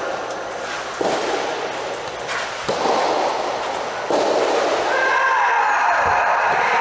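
Sharp pops of soft tennis rubber balls struck by rackets, four in a few seconds, over a steady background hubbub of play and voices in the hall, which grows louder near the end.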